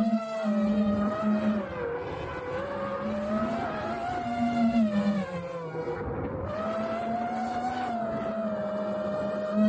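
Brushless motors and props of a 5-inch FPV quadcopter (XING-E 2207 1800KV motors on 6S, HQProp Ethix S5 props) whining as picked up by the onboard camera. The pitch rises and falls with the throttle, dipping lowest about six seconds in before climbing back.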